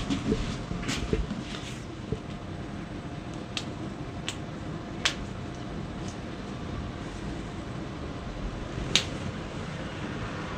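A handful of short, sharp clicks, spaced out, the loudest about nine seconds in, over a steady hum: joints popping during a chiropractic spinal adjustment.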